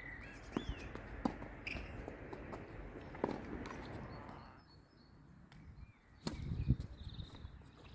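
Doubles tennis rally on an outdoor hard court: a few sharp pops of the ball off rackets and the court surface, then heavy footsteps and shoe scuffs of a player running near the end. Birds chirp briefly at the start.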